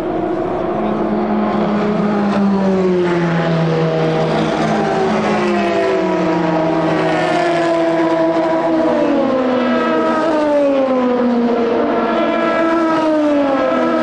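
Several endurance race cars going by in close succession, their engine notes overlapping and each falling in pitch one after another.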